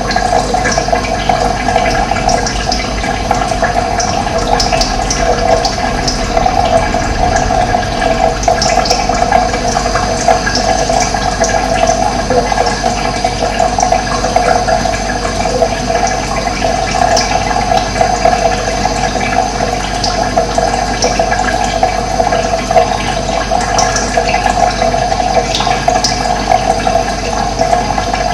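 Running water rushing steadily, with scattered short, high bird chirps over it.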